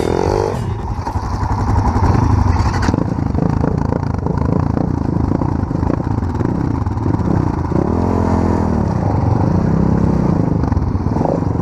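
Small off-road motorcycle engine running under way, its revs rising and falling as the rider works the throttle.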